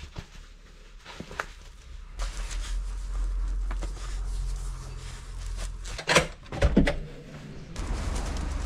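Sneakers being pulled on and laced, with rustles and small knocks over a steady low rumble; two loud knocks come about six seconds in. Near the end, footsteps on asphalt begin at about two steps a second.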